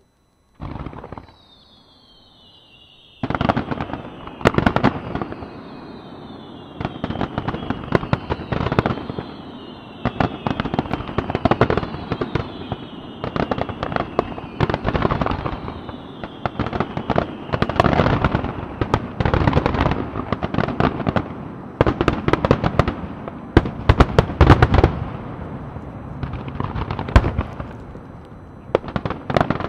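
Aerial fireworks barrage: one short burst, then from about three seconds in a rapid, overlapping run of loud shell bursts and crackle. Several whistles slide down in pitch together through the first half.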